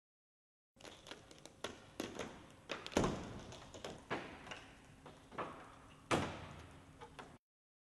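2016 Ford Mustang being crushed by a hydraulic roof-crush plate: the windshield glass and body panels give a series of sharp cracks and knocks, the loudest about three seconds in and again about six seconds in, over a faint steady hum.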